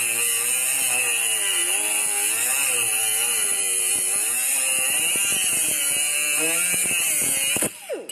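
A handheld electric power tool running steadily under load, its pitch dipping and recovering as it is worked against the panel metal. Near the end it cuts off and briefly winds down.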